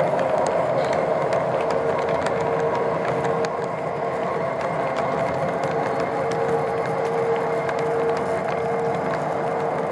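O-gauge model train tank cars rolling past on three-rail track: a steady rumble of metal wheels with a constant hum and light, irregular clicks.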